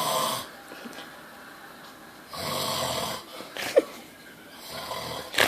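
A man snoring loudly in his sleep: three rasping snores about two seconds apart. A brief thin squeak comes after the second snore, and a short sharp sound comes near the end.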